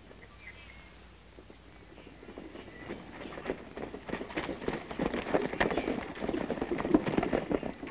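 Hoofbeats of a group of horses galloping over dirt: a rapid, uneven clatter that grows louder as the riders come close and pass, then falls away near the end.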